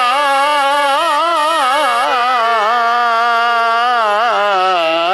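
An elderly man singing one long, wavering, ornamented note of a devotional Hindi doha, close on a headset microphone.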